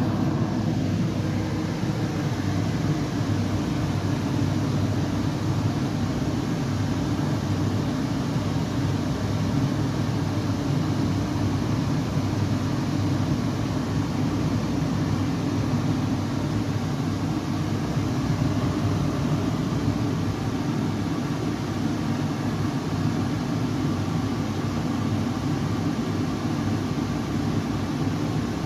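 Steady, even white-noise-style sound weighted low, a deep rumbling hiss like engine or cabin noise, played as white noise to soothe a baby.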